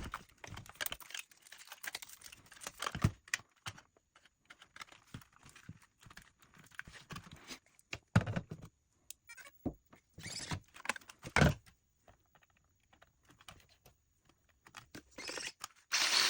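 Handling noises: scattered clicks and taps of objects being picked up and set down, with a few louder thunks about eight and eleven seconds in. A rushing hiss starts near the end.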